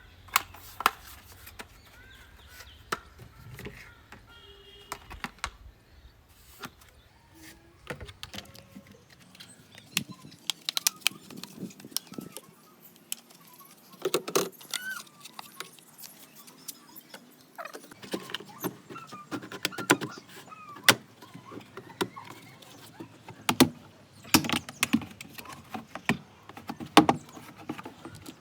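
Irregular clicks, knocks and metallic clinks of tools and parts being handled, more frequent in the second half.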